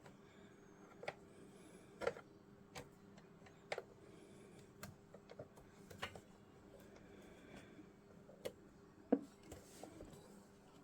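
Faint, irregular small clicks and light taps, about a dozen, over a low steady hum.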